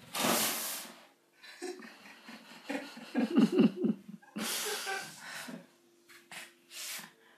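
A dog snorting: two loud huffing blows, one at the start and one about halfway through, with a run of short low grunts between them and a smaller snort near the end.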